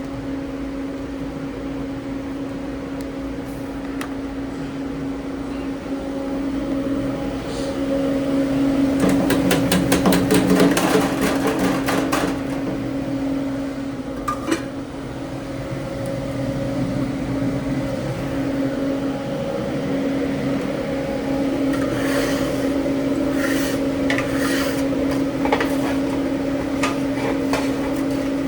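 Commercial kitchen at work: a steady mechanical hum under clusters of clattering knocks of pans and utensils. The clatter is heaviest about ten seconds in and again in the last several seconds.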